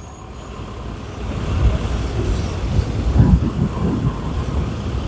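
Road vehicle passing close by: low engine and tyre noise grows louder from about a second in and stays up, with wind on the microphone.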